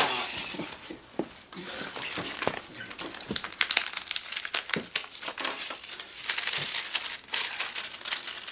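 Paper crinkling and rustling in quick, irregular crackles as a letter is handled and unfolded.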